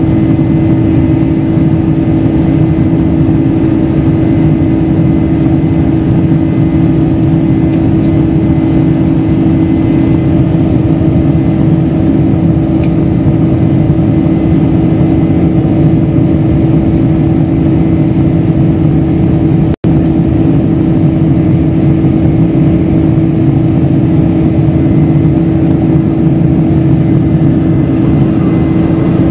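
Cabin noise of a Boeing 747-400 in flight, heard from a window seat beside the wing: its General Electric CF6 turbofans running in a steady drone with a constant low hum tone over a rumble of airflow. The sound drops out for an instant about twenty seconds in.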